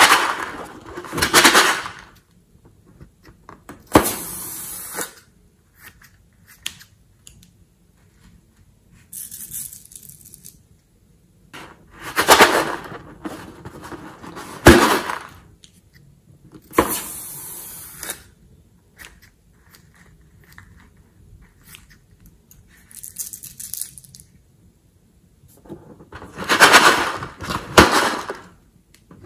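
Rubber balloon handled and rubbed between the hands, in short noisy rustling bursts every few seconds, a few starting with a sharp click.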